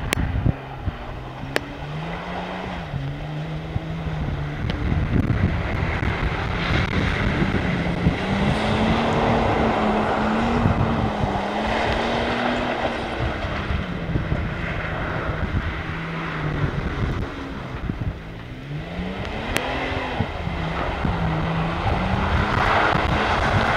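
Toyota FJ Cruiser's V6 engine revving up and down in repeated swells as it spins donuts in mud, with the rushing noise of its wheels spinning and throwing mud.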